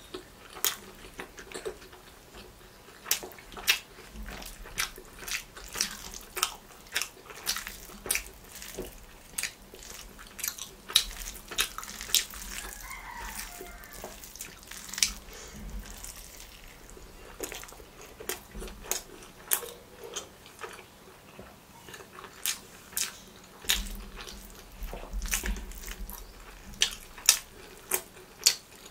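Close-miked eating sounds: wet mouth smacks and chewing clicks from someone eating parotta and curry by hand, coming in irregular clusters of sharp clicks throughout.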